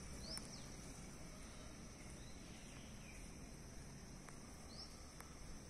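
Faint outdoor ambience: a steady high-pitched insect drone, with two short rising bird chirps, one about a third of a second in and one near the end, over a low rumble.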